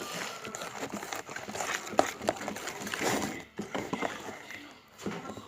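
Glue-and-soap slime mixture being stirred in a bowl: irregular sticky clicks, crackles and short scrapes.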